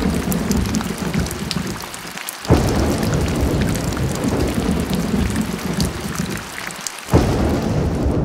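Heavy thunderstorm: dense rain pouring with a low rumble of thunder underneath. Twice the sound sinks for a moment and then comes back suddenly at full strength.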